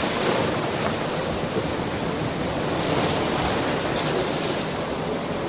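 Ocean surf washing on a shore: a steady rush of breaking and receding waves that eases off slightly.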